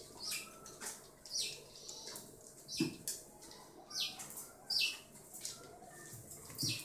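A ferret scuffling and scraping as it drags a lemon across a tiled floor under a kitchen cabinet: irregular short scrapes, with a dull knock about three seconds in and another near the end.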